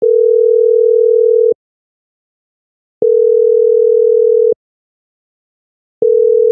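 Telephone line tone: a steady single-pitched beep about a second and a half long, sounding three times with equal silent gaps between.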